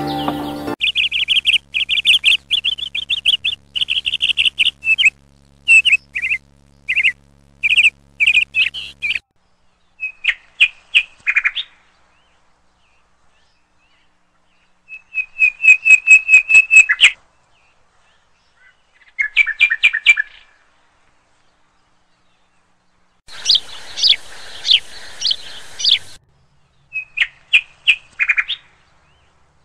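Bird calls: rapid series of short, high chirps and trills, repeated in about six separate bouts that start and stop abruptly, with dead silence between them.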